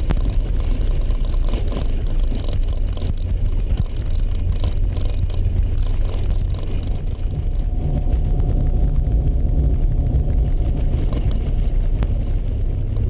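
Vehicle engine and tyres on a dirt road, heard from inside the cabin: a steady low rumble.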